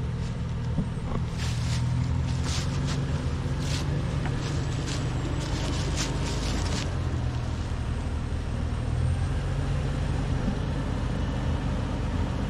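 Off-road SUV engine running low and steady, crawling through a trail obstacle. Sharp clicks and crackles come through it during the first half or so, then fade.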